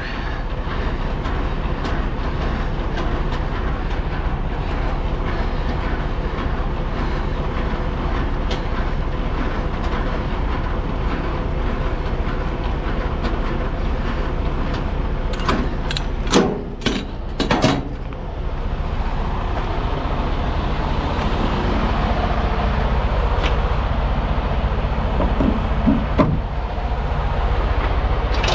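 Semi truck's diesel engine idling steadily with a low rumble. A few sharp knocks or clicks come about two-thirds of the way through.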